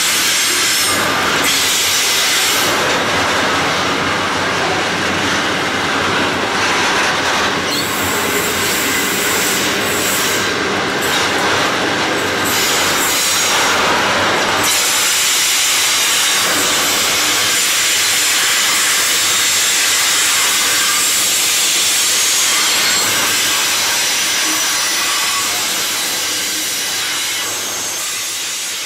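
Aurizon grain train hopper wagons rolling past at close range: a steady rush and rattle of steel wheels on rail, with a thin high wheel squeal. It fades near the end as the last wagons go by.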